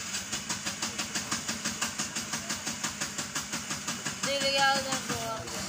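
An engine running with a rapid, steady beat. A voice is briefly heard about four seconds in.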